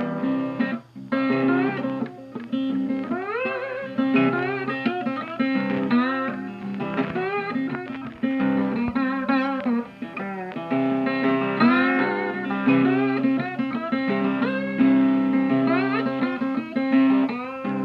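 Background music: plucked guitar with bending, sliding notes over a steady bass line.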